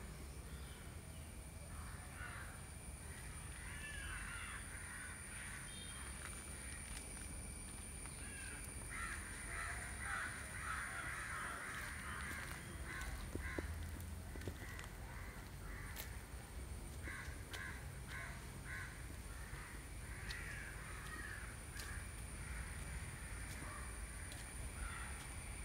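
Birds calling in harsh, repeated bouts that come and go, over a steady high thin tone and a low rumble.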